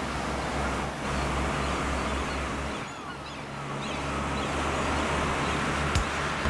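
Boat engine ambience: a steady low motor hum over a wash of water, with faint bird chirps. The hum dips briefly about three seconds in, and there is a short click near the end.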